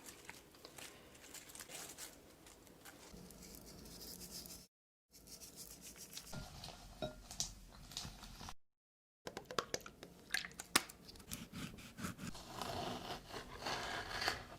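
Close-miked ASMR sounds of scraping, crinkling and crunching with many small clicks, of the kind made by handling food and packaging for eating sounds. It breaks off twice into brief total silence at edit cuts.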